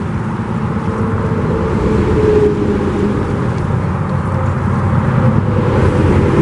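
Road traffic on a highway: a steady low rumble of passing vehicles that grows slightly louder.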